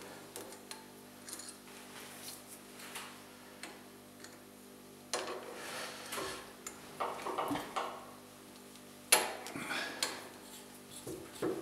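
Hand tapping threads in a machined metal part: a tap and tap wrench clicking and clinking as they are turned and moved between holes. One sharper metallic clink comes about nine seconds in.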